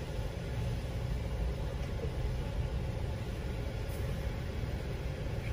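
Car idling, heard from inside the cabin: a steady low rumble.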